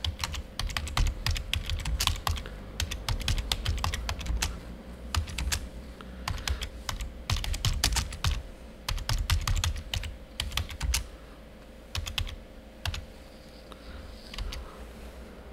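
Typing on a computer keyboard: quick runs of key clicks with short pauses between words, thinning out near the end, over a faint steady hum.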